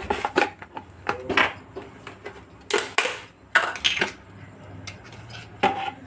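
Thin plastic bottle crackling and crinkling in the hands as its neck is cut away with a knife and the bottle is handled: an irregular run of sharp crackles, loudest about three seconds in.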